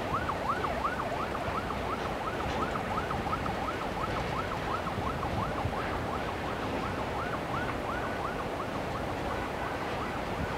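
A siren in a fast yelp, its pitch rising and falling about three times a second, slowly fading, over steady noise.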